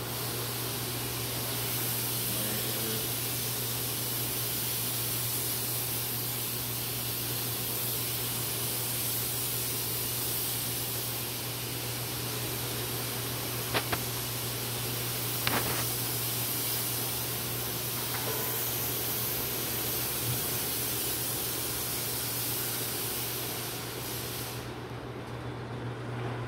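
Electric disinfectant fogger spraying with a steady, strong hiss over a low hum, cutting off about two seconds before the end. A couple of faint clicks come midway through.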